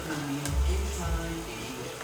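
Background music with held tones over a steady bass, and a single light click about half a second in.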